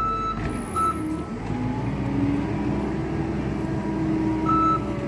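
Skid steer engine running steadily under work, with its backup alarm sounding three short beeps as it reverses: one at the start, one about a second in and one near the end.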